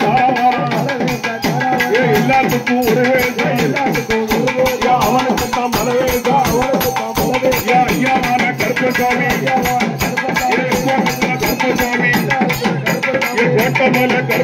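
Live Tamil folk music for a kummi dance song: fast, even drumbeats with a wavering melody line over them, playing without a break.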